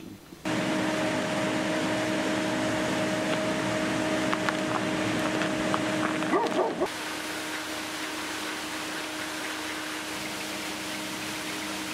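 A steady mechanical hum with a few faint clicks, broken about six and a half seconds in by a short burst of animal yelps. The hum then carries on at a lower level.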